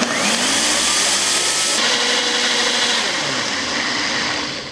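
Nutri Ninja blender motor running at high speed, blending young coconut meat and coconut water into coconut milk in its single-serve cup. The motor speeds up at the start, its pitch shifts about three seconds in, and it winds down near the end.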